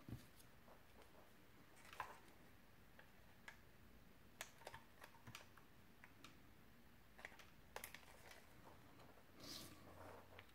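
Near silence broken by faint, scattered small clicks and taps of hands working paper: mini Glue Dots being dabbed from a dispenser onto a cardstock butterfly. A slightly longer soft rustle comes about nine and a half seconds in.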